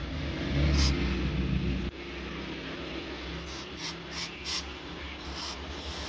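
WD-40 aerosol can sprayed in short hissing bursts, one near the start, then a quick run of several in the middle and one more near the end, applying rust remover to a motorcycle horn's rusted internals. A low rumble underlies the first two seconds and stops abruptly.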